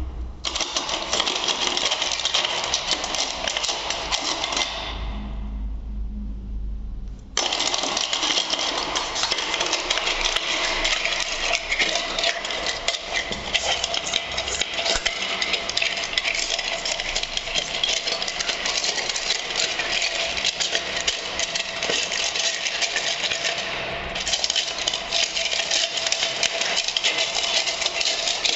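Wire brush scrubbing rust off a metal hand tool, a continuous scratchy scraping that breaks off for a couple of seconds about five seconds in, then resumes.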